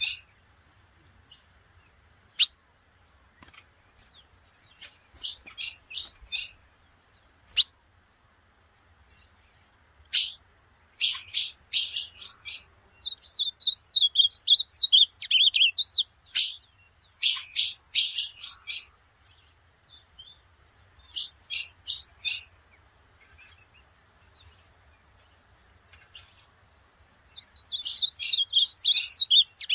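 Ultramarine grosbeak (azulão) singing: about six short phrases of rapid, sharp high notes separated by pauses of a few seconds. A softer, lower twittering run follows one phrase near the middle, and another comes near the end.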